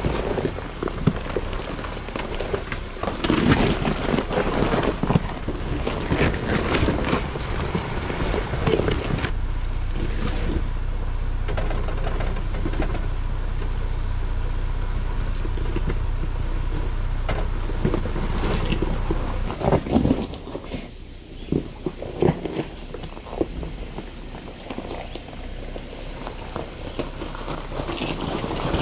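A Jeep Gladiator Rubicon crawling an off-road trail: the engine runs steadily at low speed under irregular crunches, knocks and scrapes from the tyres and chassis over rock and mud. The sound eases off for a few seconds past the middle, then picks up again.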